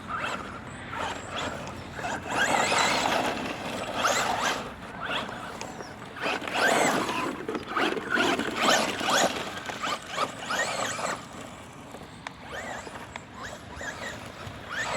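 Traxxas Slash 2WD RC truck driving, its Hobbywing-powered electric motor whining up and down in pitch as the throttle is blipped in repeated bursts, with a rough scrabbling noise alongside.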